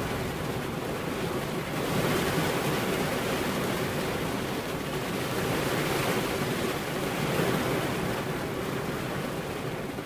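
Heavy rain falling as a steady rushing noise that swells louder about two seconds in and again around six to seven seconds.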